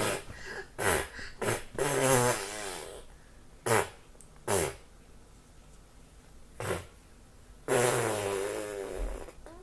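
A young child blowing mouth-fart raspberries: several short bursts and two longer buzzing ones with a wobbling pitch, about two seconds in and near the end.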